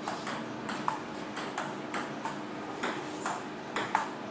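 Table tennis rally: the celluloid ball clicking back and forth off paddles and the table, about three sharp hits a second, a few ringing briefly.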